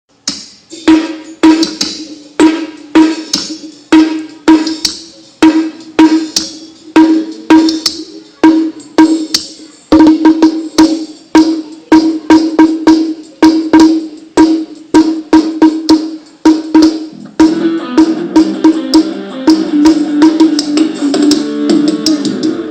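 Music played on a sound rig during a sound check: sharp percussive hits about twice a second over a steady low note. About seventeen seconds in it turns denser, with held notes filling in between the hits.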